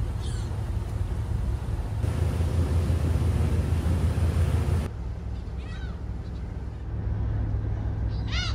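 Ferry engine running with a steady low drone under wind and wake noise, which jumps abruptly twice. Gulls call a few times over it, most loudly near the end.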